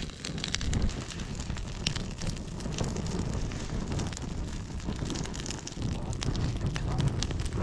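Wood campfire crackling, with irregular sharp pops and snaps over a low rumble of wind on the microphone.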